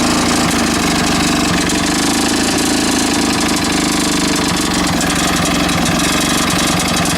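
Mountfield walk-behind lawn mower's petrol engine running steadily on a homemade big-end bearing shell, with a little knocking left. The owner is unsure whether the knock and rattle come from the engine or from something else, such as a bent blade.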